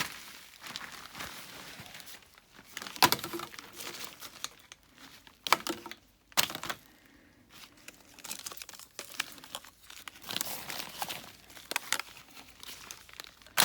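Crinkling and tearing of material being handled and crumpled by hand, with a few sharp clicks or knocks about three, five and a half and six and a half seconds in.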